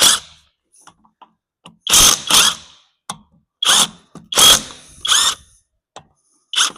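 Power tool run in short bursts, about seven of them, each well under a second, with brief pauses between.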